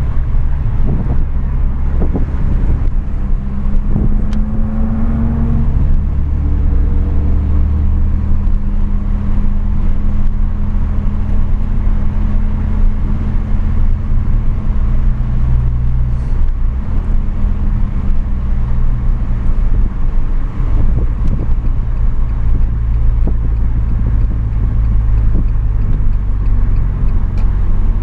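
Renault Megane 225's turbocharged 2.0-litre four-cylinder engine running hard on track, heard from inside the cabin with road noise. Its note rises about four seconds in and changes pitch again around sixteen and twenty-one seconds.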